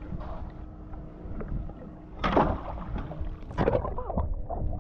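Water sloshing against the hull of a drifting boat, with a low wind rumble on the microphone and two louder rushing surges of water, about two and three and a half seconds in.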